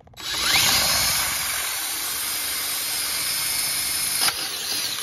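Power drill spinning up with a rising whine, then running steadily as its bit bores out a stripped T30 rotor set screw in the wheel hub. The drilling cuts off about four seconds in.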